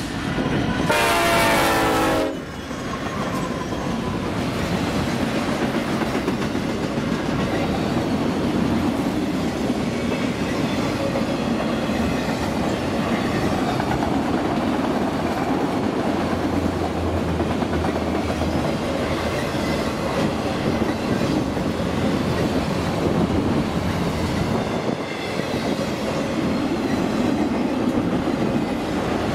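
Diesel locomotive horn sounding one short blast about a second in as the engine passes. It is followed by a long train of autorack cars rolling by at speed, with steady wheel rumble and clickety-clack over the rail joints.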